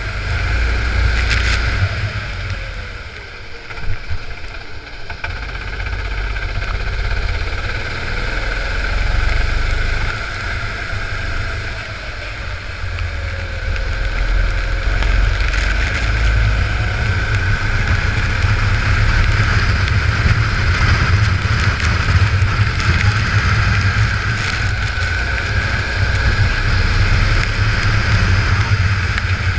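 A rental kart's engine heard from on board, running continuously, its pitch rising and falling as the driver accelerates and lifts through corners, with strong wind rumble on the microphone.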